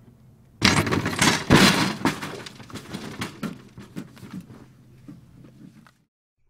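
A sudden loud crash of something breaking, followed by a scatter of sharp clicks and tinkles from falling pieces that thin out over about five seconds, over a low steady hum. The sound cuts off abruptly near the end.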